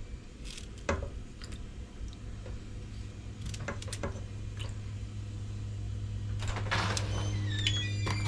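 Kitchen handling sounds: scattered light knocks and clatter over a steady low hum, with a short rustle about seven seconds in.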